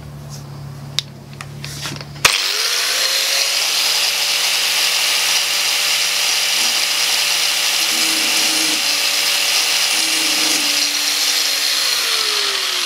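Angle grinder switched on about two seconds in, its motor spinning up to a steady whine while the disc grinds a keyway into a steel shaft held in a vise. Near the end it is switched off and winds down.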